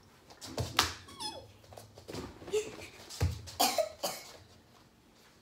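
A few dull thuds of a child jumping and landing on a padded footstool, with short squeaky sounds falling in pitch in between.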